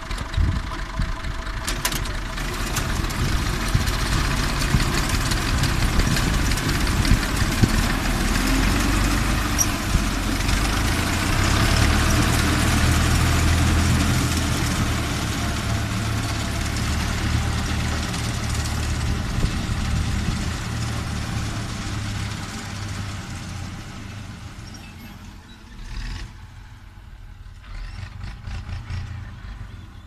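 Tractor engine running steadily as it drives a front-mounted wheat reaper through standing wheat. It grows fainter over the last several seconds as the tractor moves away.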